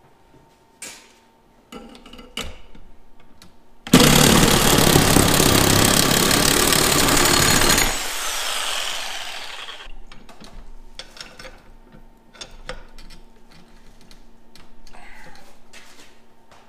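Handheld reciprocating saw cutting through 3/16-inch steel bar stock clamped in a vise, running hard for about four seconds from about four seconds in, then stopping and winding down. Scattered clanks and rattles of the steel bar and tool being handled follow.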